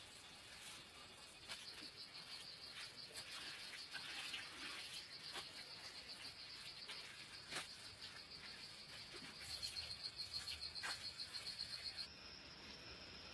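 Insects trilling in a high, fast pulse, louder for a couple of seconds toward the end and then changing to a steadier tone, with scattered light clicks over it.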